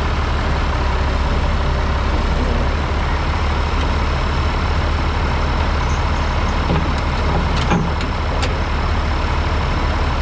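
Farm tractor engine running hard under load while pulling a weight-transfer sled, a loud steady drone. A few sharp clicks come about three-quarters of the way through.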